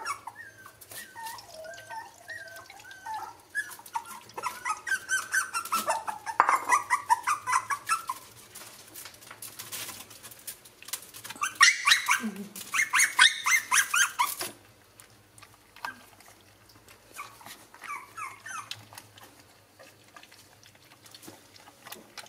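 Hungry puppies whining and whimpering in high, wavering cries for the first several seconds. About halfway through comes a loud spell of rapid clattering, and near the end the puppies lap milk from a plastic tray in quiet, quick laps.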